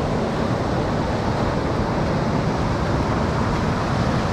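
Ocean surf breaking and washing up the beach: a steady rush of noise, with wind rumbling on the microphone.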